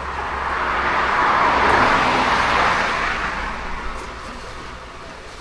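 A road vehicle passing by: its noise swells to a peak about two seconds in, then fades away.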